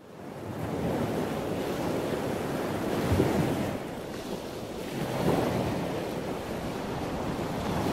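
Ocean surf: a rushing wash of breaking waves that fades in at the start and swells about three seconds in, again about five seconds in, and once more near the end.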